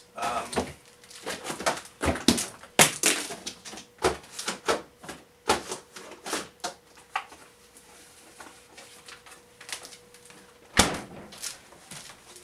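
Irregular knocks, clicks and clatters, a dozen or so scattered through, the loudest about two to three seconds in and another about eleven seconds in, over a faint steady hum that stops about eleven seconds in.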